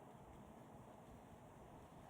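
Near silence: a faint, steady background hiss with nothing standing out.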